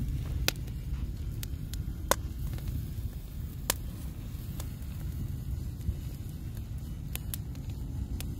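Wood fire crackling in a fire ring, with sharp pops at irregular intervals, about one a second, over a steady low rumble.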